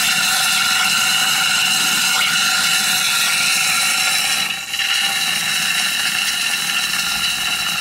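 Safety valves of a 2-inch scale Allchin live-steam traction engine blowing off: a loud, steady hiss of escaping steam with a whistle in it, dipping briefly about halfway through. It is the sign that the boiler has reached its blow-off pressure.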